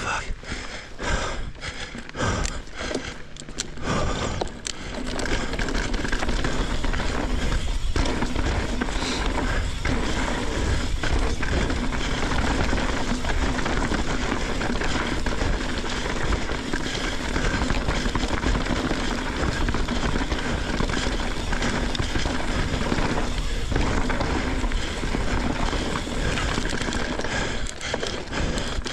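Mountain bike on a dirt trail: tyres rolling and the bike rattling, with wind on the microphone. Irregular knocks and clatter for the first few seconds, then a steady rushing noise from about five seconds in.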